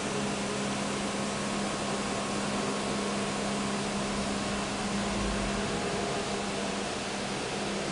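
Steady mechanical hum with an even hiss, from running machinery or ventilation, and a brief low thump about five seconds in.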